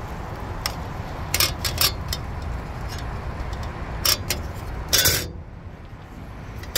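Light metallic clicks and taps of an 8-inch aluminium evaporator fan blade being bent by hand and pressed against a flat metal surface, with a louder clatter about five seconds in, over a steady low background rumble.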